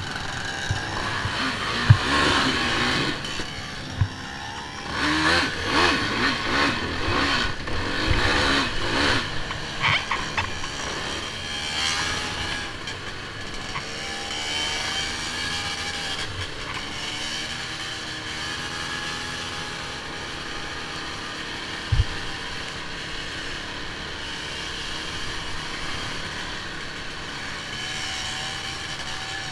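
Off-road vehicle's engine running as it rides a rough dirt trail, its pitch rising and falling with the throttle in the first third and steadier later. There are a few sharp knocks, the loudest about two seconds in and another about 22 seconds in.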